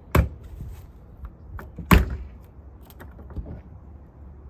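Aluminium RV storage compartment door with a newly fitted keyless compartment handle being shut and its latch tried: two solid thuds about 1.7 seconds apart, with lighter clicks and rattles from the handle and latch between and after. It is the new lock being checked to see that it latches.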